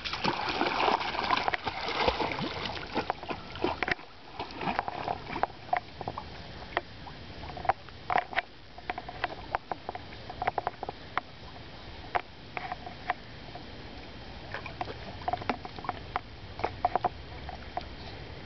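Cocker spaniel splashing into the lake for the first few seconds, then short, irregular splashes and small noises as it swims out to the retrieving dummy.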